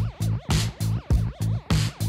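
Background music: an electronic track with a fast, chopped pulsing beat, about four pulses a second.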